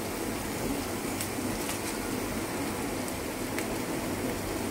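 Diced vegetables sizzling steadily in hot oil in a frying pan, with a few faint crackles.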